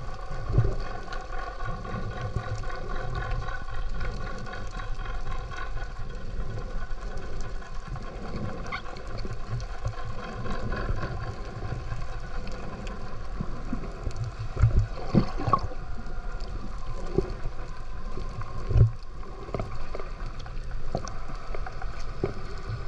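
Underwater ambience picked up by a submerged camera: a steady low rumble and hum, with gurgling water and a few dull thumps, the strongest about fifteen and nineteen seconds in.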